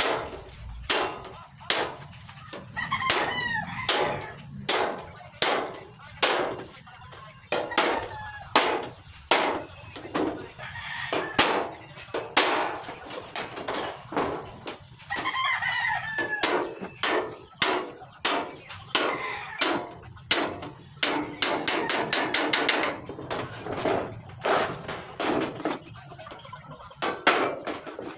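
A steel hammer striking a galvanized iron sheet in irregular blows, about one to two a second, folding down a hem along the edge of a tricycle floor panel. Chickens cluck and a rooster crows between the blows.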